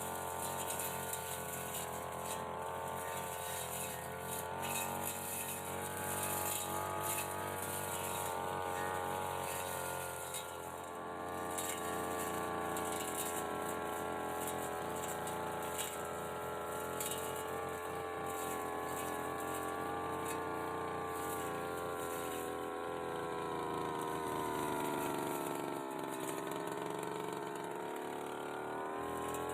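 Brush cutter engine running at high speed with a propeller-type blade cutting hedge growth, its pitch wavering under the load. Near the end the engine note sags, then climbs again.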